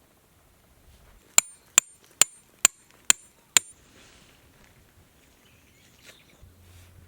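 A hammer strikes metal six times in a steady rhythm, about two blows a second, each blow with a short high ring.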